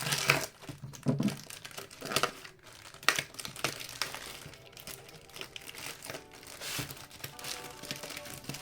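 Plastic packaging being handled and torn open, with irregular crinkling and a few sharp crackles.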